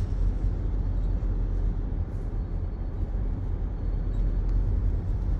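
Steady low rumble of a car driving, the engine and road noise heard from inside the cabin.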